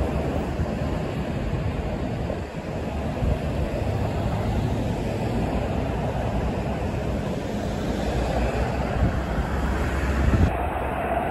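Street traffic noise: a steady low rumble of motor vehicles running and moving past, growing slightly louder near the end.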